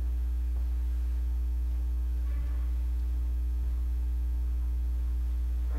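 Steady low hum, with a fainter steady tone above it, in a pause between words.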